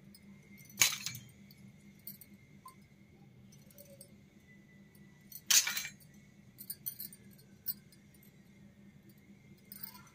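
Miniature steel toy kitchen utensils being set down on a hard surface, clinking: two sharp clinks, about a second in and about five and a half seconds in, with a few lighter taps later, over a faint steady hum.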